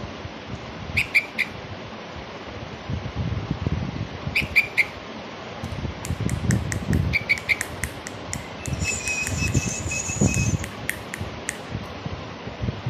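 Young caged bulbuls calling: short clusters of three or four quick high chirps about a second, four and a half seconds and seven seconds in, then a thin steady high note held for nearly two seconds around nine seconds in, with scattered sharp ticks among the calls.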